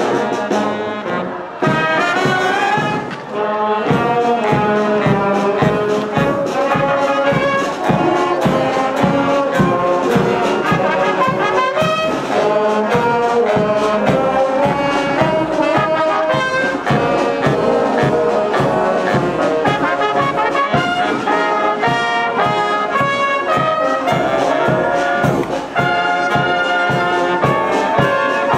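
Marching wind band playing a march: trumpets, sousaphones, saxophones and clarinets over a steady, even beat.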